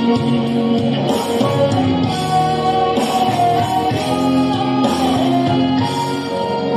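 Instrumental break of a Mandarin pop song: backing music with held melodic notes and a steady beat, and no singing.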